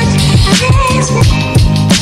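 Electronic music with a steady beat and sustained synth tones.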